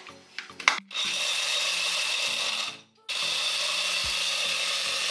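A few short clicks, then an Oster countertop blender running steadily, its blades grinding whole almonds dry, with a short break about three seconds in.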